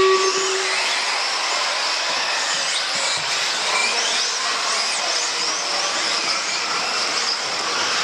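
A short electronic start tone, then a pack of radio-controlled off-road buggies racing together: a dense, steady whir of electric motors and gears, with many pitches rising and falling as the cars accelerate and brake around the track.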